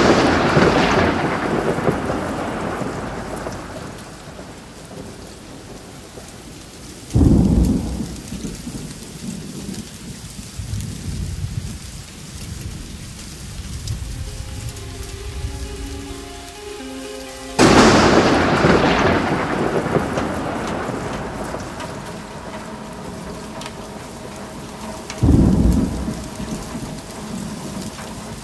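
Thunderstorm with steady heavy rain. Thunder dies away from a crack just as it begins, then a low rumble about seven seconds in. A sharp crack comes at about eighteen seconds and rolls on for several seconds, and another low rumble about three seconds before the end.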